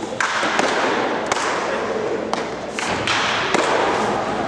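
Sharp, irregular knocks of baseballs in catcher practice, about six in four and a half seconds, over a steady background noise.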